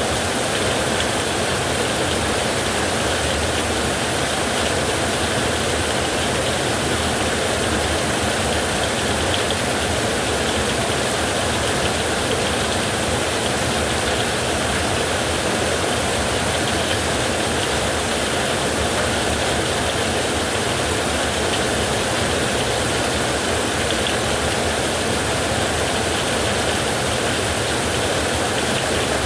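Heavy rain drumming on a metal roof with wind, a dense, steady hiss that never lets up.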